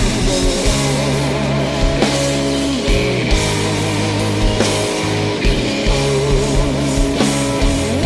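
Rock band playing an instrumental passage: electric guitar lines with wavering vibrato over sustained bass notes, with drums keeping a slow, steady beat.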